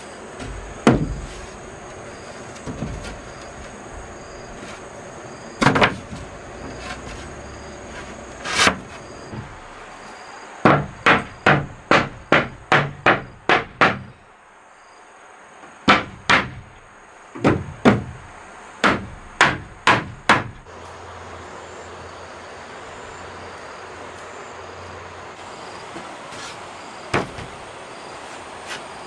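A wooden block knocking against wooden wall planks to tap them tight into place. A few single knocks come first, then two quick runs of about eight knocks each, two to three a second, and one last knock near the end.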